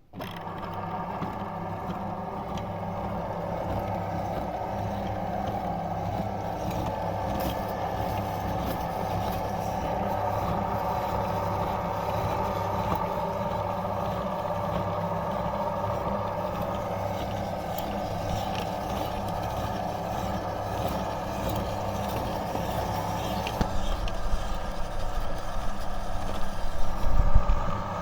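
Electric meat grinder starting abruptly and running steadily with a humming drone as it grinds Oreo cookies. In the last few seconds, irregular low thumps come in and the sound gets louder.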